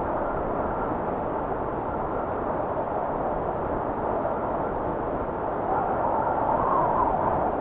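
Steady rushing wind that swells a little near the end.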